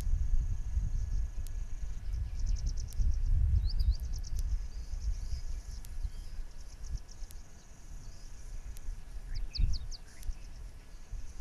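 Outdoor ambience: a gusty low rumble, the loudest sound, under an insect's high steady trill that breaks into runs of rapid pulsed chirps several times. A few short rising bird chirps come near the end.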